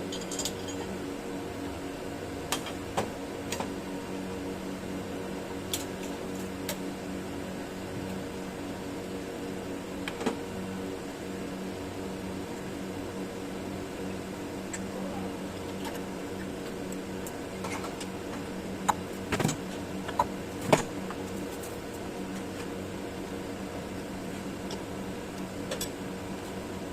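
CNC milling machine running with a steady hum, broken by scattered sharp clicks and knocks, several of them close together about two-thirds of the way through.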